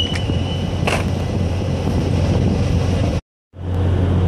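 Steady low hum of ship machinery under a rumble of wind on the microphone. A whistle-like tone carries on until about a second in, then a click, and the sound cuts out for a moment about three seconds in.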